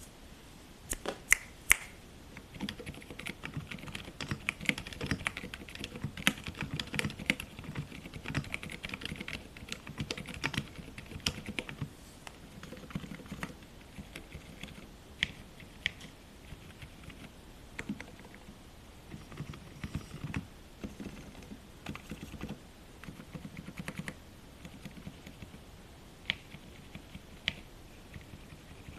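Typing on a Qwertykeys Neo65 mechanical keyboard fitted with WS (Wuque Studio) silent linear switches, a POM plate, case and plate foam, and PBT keycaps. A few sharp clacks open it, then a fast run of keystrokes that thins out after about twelve seconds to slower, scattered presses. A few louder clacks stand out from the run.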